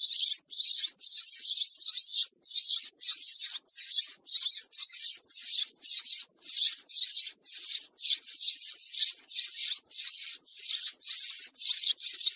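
House sparrow chirping: a steady, unbroken run of short, high chirps, about two to three a second.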